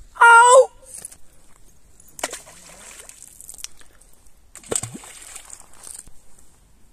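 A brief loud shout, then two splashes of stones landing in the river, about two seconds and nearly five seconds in.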